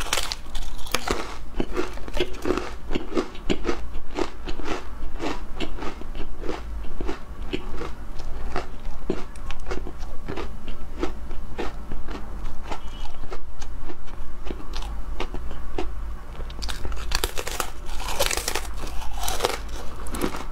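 Crisp seaweed crackers being bitten and chewed close up: many sharp, irregular crunches, several a second, with a denser run of louder crunches near the end.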